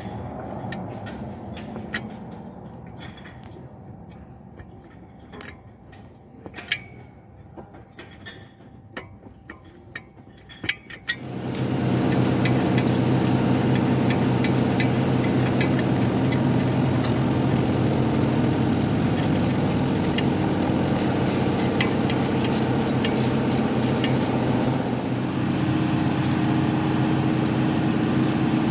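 Scattered metallic clinks and taps of tools, then about 11 seconds in a car engine starts and runs steadily at idle.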